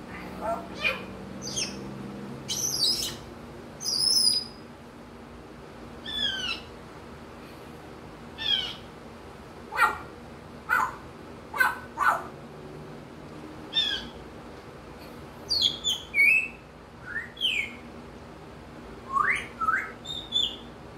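African grey parrot calling in a string of short whistles, chirps and squawks, many sliding quickly down or up in pitch, with irregular gaps between them, imitating wild-bird calls.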